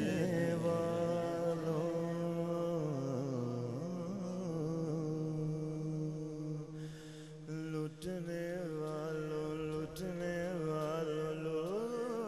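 Male naat reciter singing a long, drawn-out melismatic phrase, his voice wavering up and down over a steady drone.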